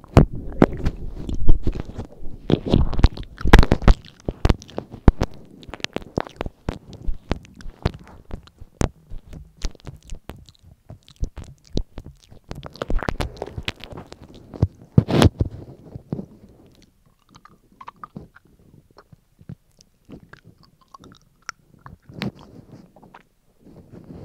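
Close-miked mouth sounds: a tongue licking a microphone and lips smacking, making wet clicks and smacks with low thuds on the mic. They come thick and loud for the first two-thirds, then thin out to scattered small clicks.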